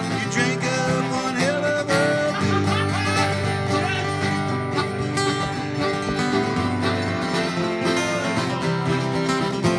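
Acoustic country-style jam: two acoustic guitars strumming chords while a harmonica plays a wavering melody over them, with a small plucked string instrument alongside.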